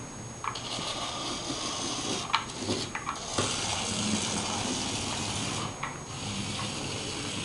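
Small electric motor of a remote-control toy mouse whirring, cutting out briefly twice, with a few sharp clicks in the first three seconds.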